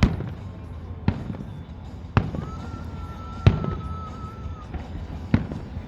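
Fireworks bursting overhead: five sharp bangs about a second apart over a low background rumble. A thin, steady high whistle runs through the middle of the stretch.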